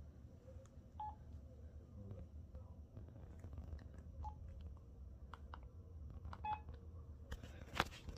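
Keypad beeps and button clicks from old LG feature phones being unlocked: a few short, faint key tones among soft key presses.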